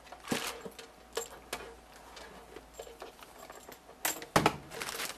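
Scattered light clicks, knocks and plastic rustles of hands handling a CB radio, its coiled microphone cord and air-cushion packaging in a cardboard box, with a louder cluster of knocks about four seconds in.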